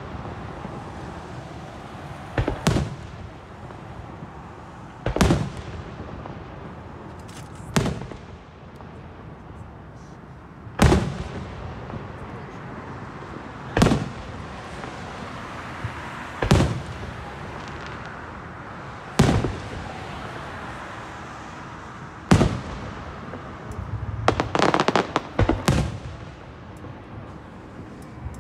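Aerial fireworks shells bursting overhead, one sharp bang about every two and a half to three seconds. A quick run of crackling pops follows a little before the end.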